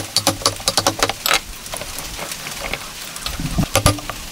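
Wooden mallet striking a chisel, chopping a mortise into the end grain of a log: a quick run of light knocks, a lull about a third of the way in, then a duller thud and a few more knocks near the end.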